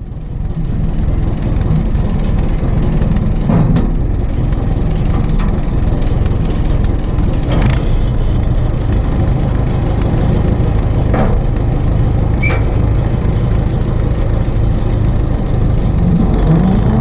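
Allis-Chalmers Model U tractor's four-cylinder engine running steadily as the tractor drives along, heard up close, with a few sharp clicks or rattles now and then. The sound fades up in the first second.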